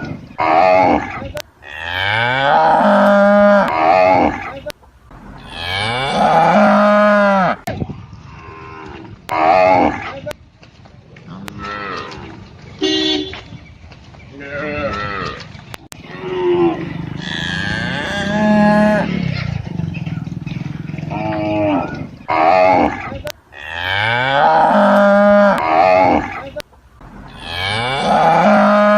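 Cattle mooing over and over: a series of loud, drawn-out moos of about two seconds each, rising in pitch at the start, with shorter calls in between and a few sharp clicks between calls.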